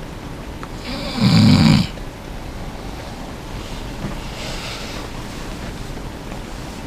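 A sleeping person snoring: one loud, rasping snore about a second in, then a fainter breath a few seconds later, over a steady background hiss.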